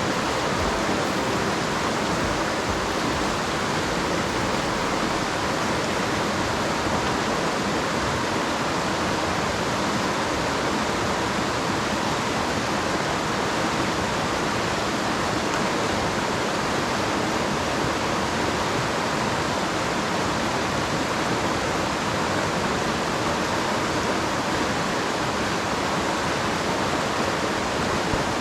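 Mountain stream rushing over rocks: a steady, unbroken wash of water noise.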